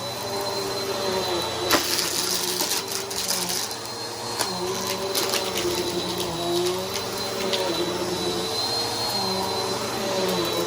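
Bissell PowerForce Helix upright vacuum running, its motor tone wavering up and down with the push and pull of the vacuum over a high steady whine. There is a sharp click a little under two seconds in, then a few seconds of crackling and rattling as debris is sucked up.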